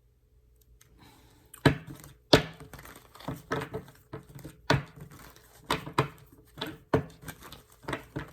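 Tarot cards being shuffled and handled: starting about a second in, a run of crisp snaps and crinkling at irregular intervals.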